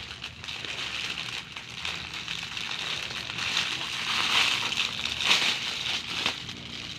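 Clear plastic packaging crinkling and rustling as it is torn and pulled off a silicone push-pop toy, busier and louder in the second half, with a sharp crackle about six seconds in.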